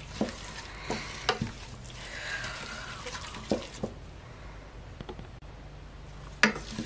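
Wooden spatula stirring a thick, oily mixture of shredded cassava and ugba in a stainless steel pot, with several sharp knocks of wood on metal in the first four seconds. It then goes quieter, with one more knock near the end.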